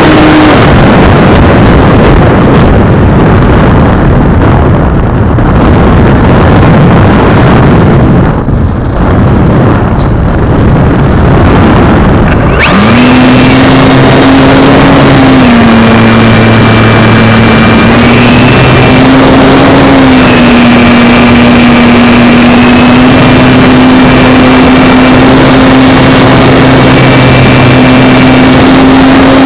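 Onboard sound of an RC plane's brushless motor and propeller. The steady drone cuts out about half a second in, leaving a loud rush of wind over the microphone while the plane glides. About twelve seconds in the motor spools back up with a quick rise to a steady drone, which wavers slightly with throttle.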